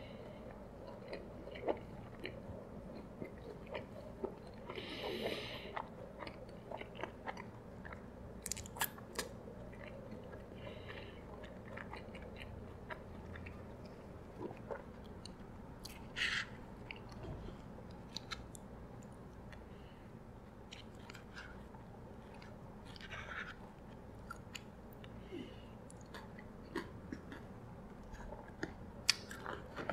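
A person chewing a mouthful of fast food close to the microphone, with many small wet clicks and smacks of the mouth and a few short hisses.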